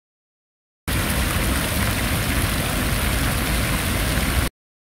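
Fountain jets splashing into a pool: a steady hiss of falling water over a low rumble. It starts abruptly about a second in and cuts off just as abruptly near the end.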